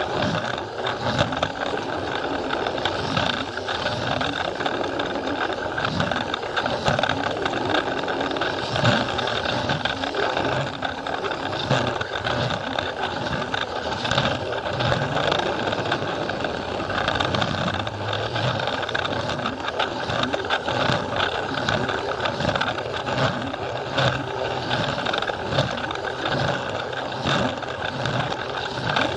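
Plarail toy train running close up: its small battery motor gives a steady whine while the plastic wheels and gears rattle and click without pause over the plastic track.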